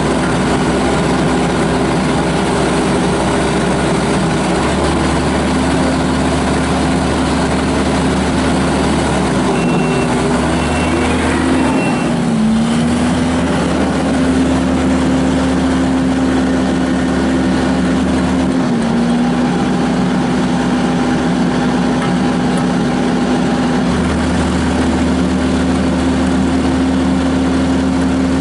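Kubota SVL75-2 tracked skid steer's diesel engine running steadily at working revs. Its pitch pulls down briefly about halfway through, and a little less later on. Three short high beeps sound just before the first dip.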